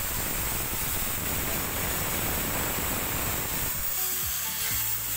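Ingco 680 W 13 mm corded impact drill running with no load in plain drill mode, its motor giving a steady whir that eases and changes briefly about four seconds in.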